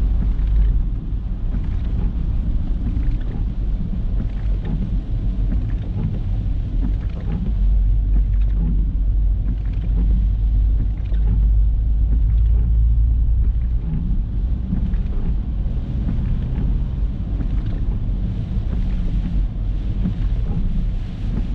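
Car driving along the road: a steady low rumble of engine and tyres.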